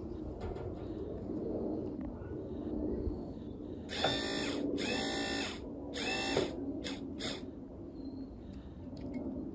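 Electric motor of a Parker Oildyne 108 electro-hydraulic deck-lift pump, run off a 12 V battery to test its second circuit. A steady hum is followed, about four seconds in, by three louder whining bursts, each falling in pitch as it stops, then a couple of short clicks.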